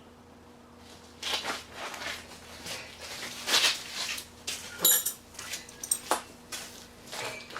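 Small metal hinge hardware being handled and fitted: a spring, nylon washer and lock nut threaded onto a stainless steel hinge bolt, giving irregular clicks, scrapes and metallic clinks, with one bright clink about five seconds in.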